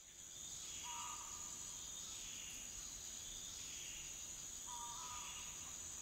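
Quiet intro of a recorded song fading in: a steady high cricket-like chirring with soft falling whistle-like sweeps, and two short paired tones, about a second in and again near the end.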